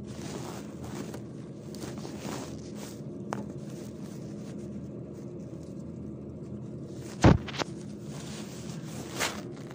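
Close handling noise while mixing food by hand: rustling and scraping near the phone over a steady low hum, with one loud knock about seven seconds in, a smaller one just after, and a softer knock near the end.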